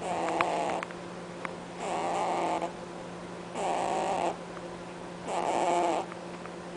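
Pet rabbit snoring in its sleep: four short honks, each under a second, about one every one and three-quarter seconds.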